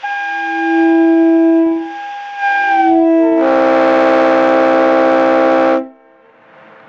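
Two loud air-horn blasts. First a multi-chime train horn, a Leslie RS-3L, sounds a chord for about three seconds, its notes sagging in pitch as it shuts off. Then a second, louder and harsher air horn blows for about two and a half seconds and cuts off sharply.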